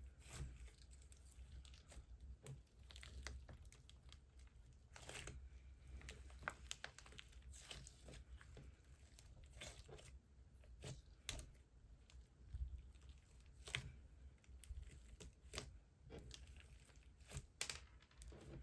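Thick slime being kneaded, folded and pressed by hand, giving off faint, irregular sticky crackles and small snaps as it is stretched and squashed.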